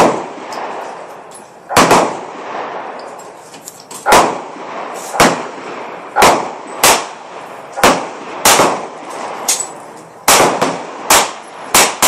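Gunfire on a shooting range's firing line: about a dozen sharp shots at uneven intervals, some in quick pairs, each followed by a short ringing echo.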